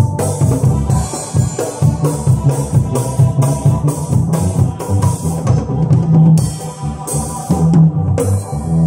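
A live band playing: a drum kit keeps a steady beat with cymbals over an electronic keyboard playing organ-like chords.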